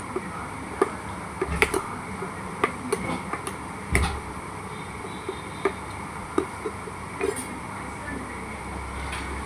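Irregular clicks and light knocks of sticky air-dry-clay slime being stirred in a container, over a low steady hum.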